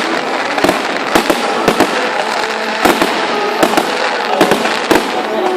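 Fireworks display: sharp bangs of shells bursting at irregular intervals, a few every second, over a steady noisy wash.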